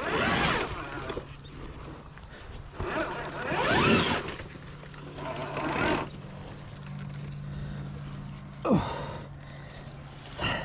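A trail motorbike's motor running with a low steady hum. Its pitch sweeps up sharply about three seconds in and drops quickly near the end.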